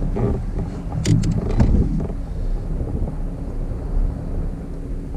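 Wind rumbling on the microphone, with a few brief knocks and taps about one to two seconds in.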